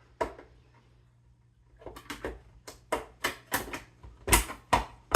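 Plastic refrigerator dispenser parts being handled and fitted back together: one sharp click, a short pause, then a quick run of about a dozen sharp clicks and knocks, the loudest near the end.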